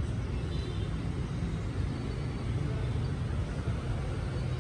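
Steady low rumble of outdoor background noise, with faint high chirps about half a second in.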